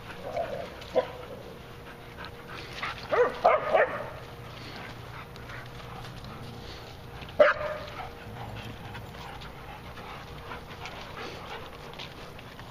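Dogs barking during rough play: a quick run of barks a few seconds in and one sharp bark about halfway through.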